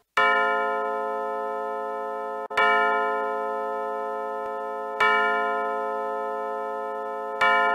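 Rhythm WSM Carlisle wall clock's quartz chime movement sounding its hourly strike: one deep bell tone struck four times, evenly about two and a half seconds apart, each left to ring.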